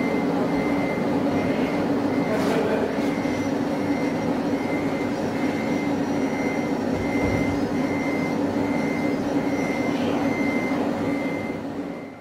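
Electronic sound module of RC construction models: a steady simulated diesel engine hum with a regular warning beep repeating more than once a second. The beeping stops near the end and the sound fades out.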